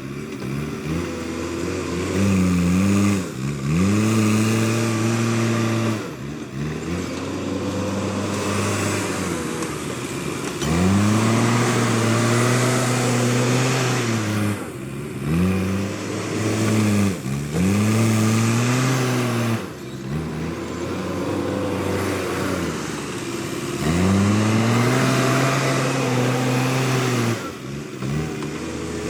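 Backhoe loader's diesel engine revving up under load and dropping back to a lower speed again and again, each rev lasting a few seconds, as the machine works.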